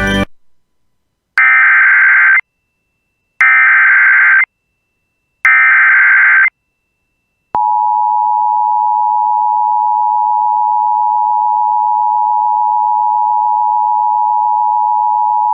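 Emergency Alert System header tones announcing a new alert. Three one-second bursts of SAME digital data tones come about two seconds apart. About seven and a half seconds in, the steady two-tone EAS attention signal starts and holds.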